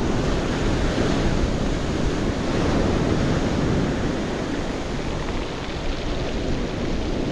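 Sea surf breaking and washing up a shingle beach in a steady rush, with some wind across the microphone.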